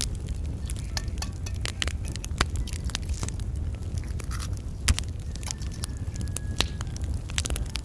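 An egg cracked onto mashed potato in a metal pan, with scattered sharp clicks and taps of hands working the pan, over a steady low rumble.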